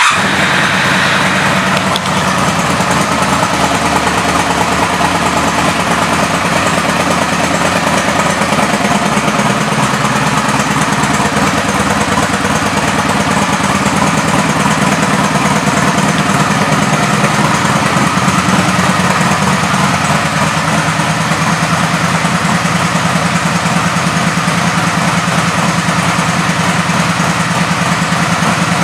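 A 2002 Honda Magna's 750 cc V-four engine idling steadily.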